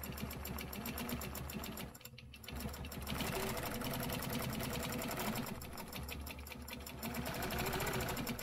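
Longarm quilting machine stitching, its needle running in rapid, even strokes while guided along a quilting ruler. It slows briefly about two seconds in, then runs faster and louder, and stops near the end.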